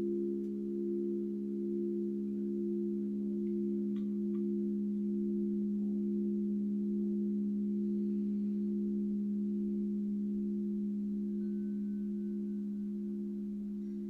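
Singing bowls ringing together in a sustained drone of several steady low tones, slowly fading toward the end. A faint higher tone sounds briefly near the end.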